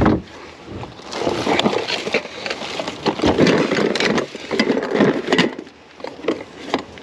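Plastic bags, loose plastic and cardboard rustling and crinkling as trash in a dumpster is dug through and a cardboard tray of candles is lifted out. The crackling is irregular, louder from about a second in until near the end.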